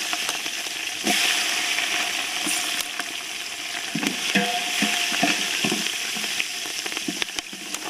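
Green chillies and whole spices sizzling in hot groundnut oil: a steady frying hiss with scattered spitting pops.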